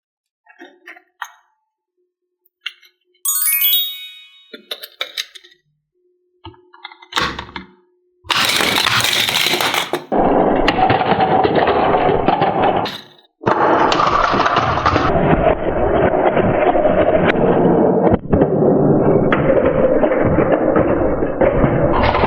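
A few short clicks and clinks and a brief chime-like sound effect, then loud background music starting about eight seconds in.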